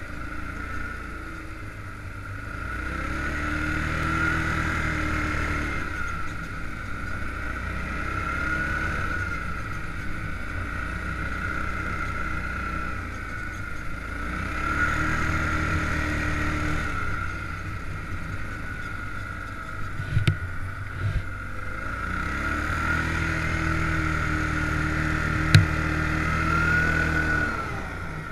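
Stels 700H EFI ATV engine running under load while riding through snow, revving up and easing off several times. Two sharp knocks come about two-thirds and nine-tenths of the way through.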